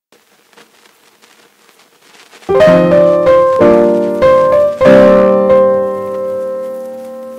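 Solo piano music: quiet at first, then chords come in loudly about two and a half seconds in, each struck and left to fade.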